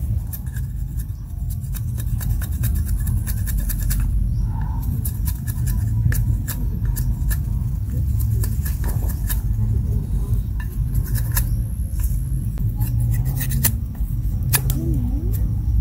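A large knife shaving a green stick, quick scraping cuts heard as runs of short sharp clicks, over a steady low rumble.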